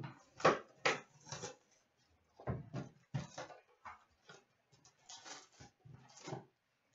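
A cardboard hockey card box being opened and its packs pulled out by hand, making irregular taps, clicks and rustles of cardboard and packs against a glass counter.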